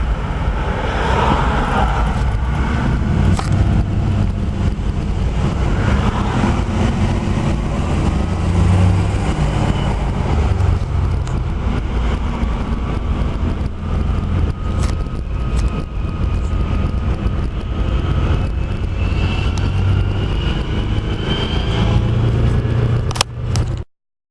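Steady low rumble of a car on the road, engine and road noise without words, cutting off suddenly near the end.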